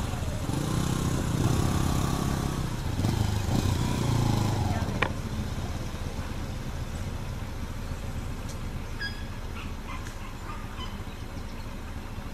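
A vehicle engine idling, with people talking over it for the first few seconds and a sharp click about five seconds in; then the engine alone, with a few short bird chirps.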